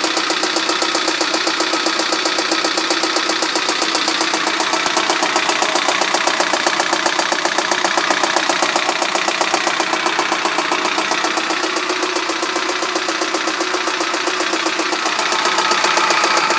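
VAZ-21099 four-cylinder petrol engine running with a rapid, steady metallic knock, which the owner suspects is a piston striking the cylinder head.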